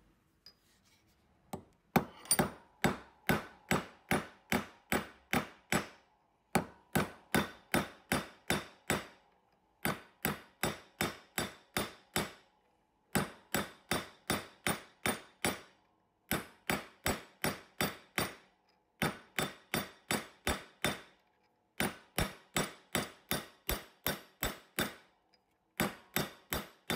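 Hammer striking a steel nail setter held on a bench vise's anvil: ringing metal-on-metal blows at about three a second, in runs of seven to nine with short pauses between.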